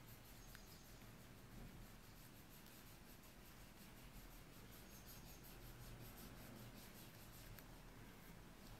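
Near silence, with faint rubbing and scratching of fingers handling a leather knife pouch.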